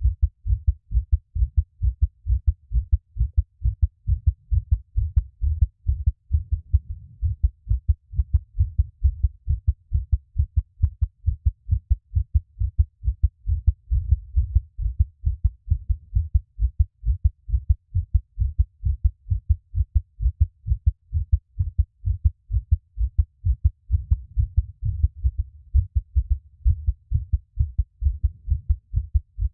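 A person's heartbeat: low thumps repeating in an even rhythm.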